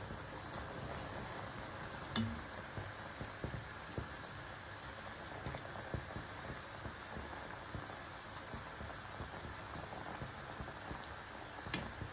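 Sugar syrup boiling hard in a pot with paneer balls cooking in it, a steady bubbling and crackling. A steel ladle knocks against the pot twice, sharply about two seconds in and again near the end.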